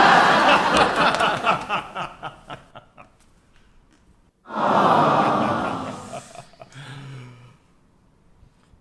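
Laughter: a loud burst that breaks into rhythmic ha-ha pulses and dies away over about three seconds, then a second burst of laughter about four and a half seconds in that fades out a few seconds later.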